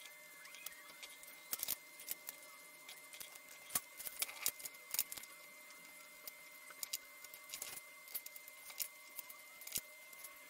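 Graphite pencil scratching on paper in short, irregular strokes, with small ticks and taps, over a faint steady tone.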